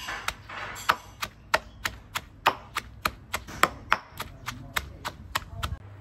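Stone pestle pounding garlic, ginger and chili in a stone mortar (Thai krok), a steady rhythm of knocks at about three a second.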